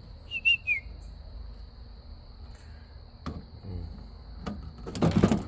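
Steady high-pitched chirring of crickets. Over it come a few sharp clicks and a short chirp under a second in, and a loud clatter about five seconds in.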